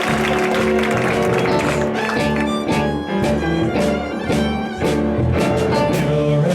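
Live band playing an instrumental song introduction, with violin, keys, guitar, bass and drums, and applause dying away during the first second or two.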